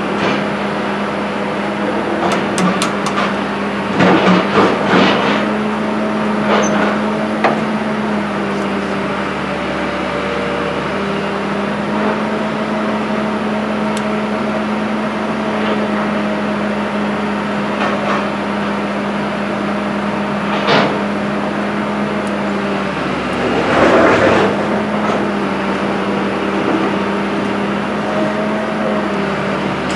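Hand tools knocking and clinking, metal on metal, against the front steering knuckle and hub of a 2001 Dodge Dakota as it is taken apart. A few sharp knocks come at intervals over a steady low machine hum.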